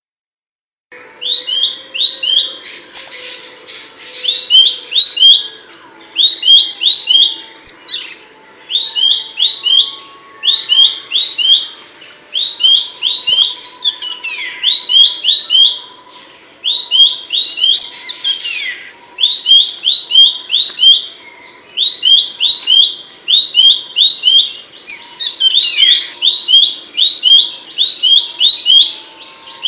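Pelanduk semak (Horsfield's babbler) singing loud, sharp, high notes in quick clusters of two to four, repeated about every second or so, with a few longer downward-sliding calls mixed in.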